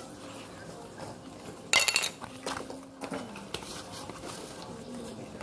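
A packet of crochet hair being opened by hand: its packaging crinkles and rattles, with small clicks and a sharp, loud rustle about two seconds in.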